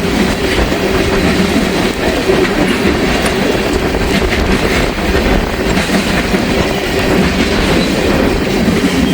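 A long Norfolk Southern freight train rolling past at close range, its car wheels clacking over the rail joints in a steady run. Strong wind buffets the microphone underneath.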